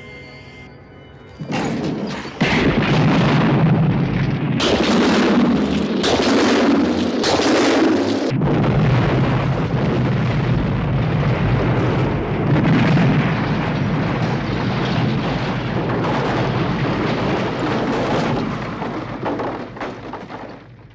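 House exploding in a film: a series of heavy blasts starting about a second and a half in, then a long, loud rumble of fire and wreckage that dies away near the end.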